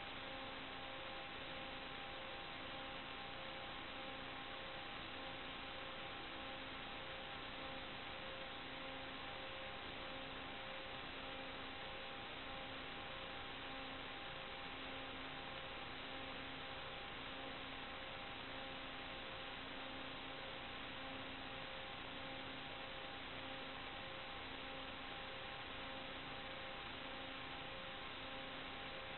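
Steady hiss with faint unchanging electrical tones and a low tone pulsing on and off about every second and a quarter: noise on the audio channel of an analog FPV video downlink, carrying no sound from the aircraft itself.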